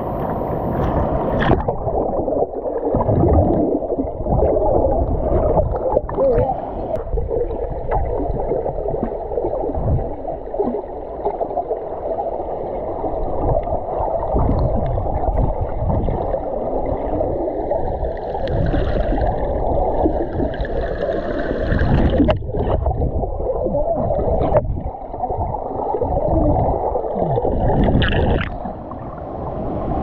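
Muffled underwater sound of a diver in a river pool: gurgling water and bubbles, dull and low, with little high sound.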